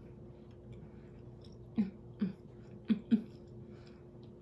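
A woman makes short, sharp throaty sounds while chewing a mouthful of steak, four of them in two pairs about a second apart, over a steady low hum.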